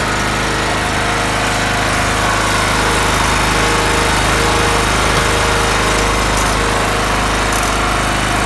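Small portable generator's petrol engine running steadily just after starting.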